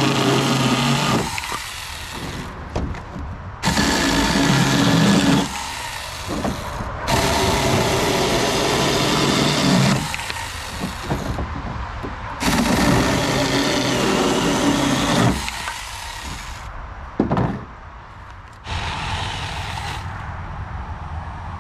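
Battery-powered Saker mini chainsaw cutting a thin dry branch in four runs of a few seconds each: the small electric motor's whine and the chain biting into wood, dropping away between runs. The saw stops after the fourth run, about two-thirds of the way through.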